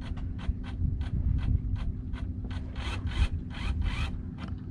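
Sailboat's wheel-mounted autopilot drive steering the helm, chirping in quick short rasps, 'chee, chee, chee', about three a second, over a steady low hum.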